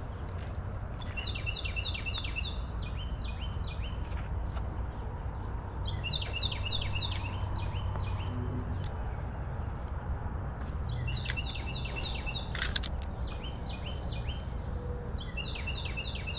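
A songbird singing the same quick phrase of rapid, high repeated notes four times, about every five seconds, over a steady low outdoor rumble.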